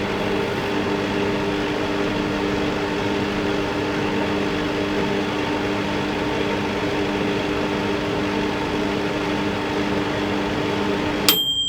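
Microwave oven running on high, a steady hum with a low even drone. Near the end the hum stops and a high beep sounds as the cycle ends.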